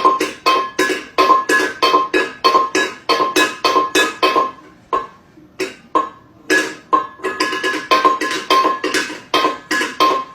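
Background music: a quick run of short plucked or woodblock-like notes in a steady rhythm, about three to four a second, thinning out for a moment about five seconds in.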